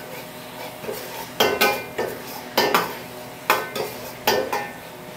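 A metal utensil stirring a thick sauce in a cooking pan, scraping and clinking against the pan in pairs about once a second, each clink with a short metallic ring; the cornflour just added is being stirred in.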